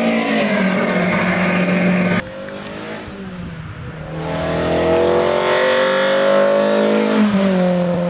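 BMW E30 M3's S14 2.3-litre four-cylinder engine running hard: its pitch falls, cuts off abruptly about two seconds in, then climbs steadily from about four seconds in before dropping again near the end.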